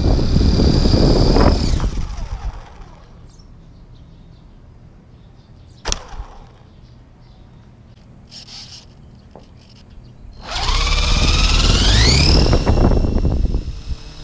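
Electric motors and coaxial rotors of a scale RC Mars Ingenuity helicopter. They run with a high whine, then wind down about two seconds in. After a quieter stretch broken by one sharp click, they spool up again with a rising whine about ten seconds in, and the sound eases near the end.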